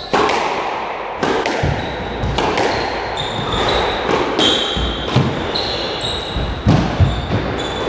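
Squash rally: a quick run of sharp cracks as the ball is struck by the rackets and hits the walls, each ringing briefly around the court. Short high squeaks from the players' shoes on the wooden floor come between the shots.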